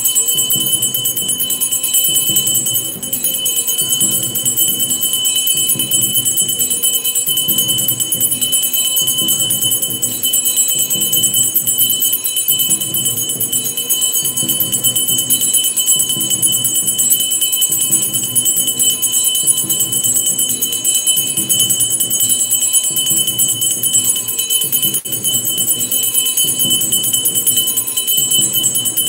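Temple bells ringing continuously for aarti, with a steady rhythmic pulse underneath.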